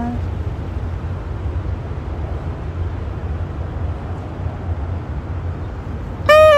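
Steady low outdoor rumble with no playing for most of the moment. Near the end a woodwind comes in with a loud note that bends in pitch and starts a new phrase.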